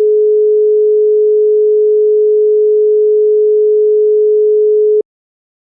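Telephone holding tone as used in Botswana: a single steady 425 Hz pure tone held for five seconds, then cut off abruptly, one beat of its 5-seconds-on, 5-seconds-off cadence that tells a caller they have been put on hold.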